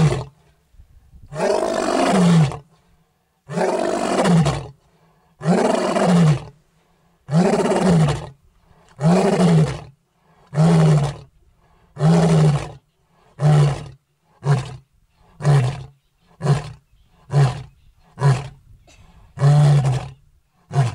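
Male African lion roaring at close range: a bout of about sixteen deep calls, each rising then falling in pitch. The first few calls are long, then from about ten seconds in they grow shorter and come faster, the closing grunts of a lion's roaring sequence.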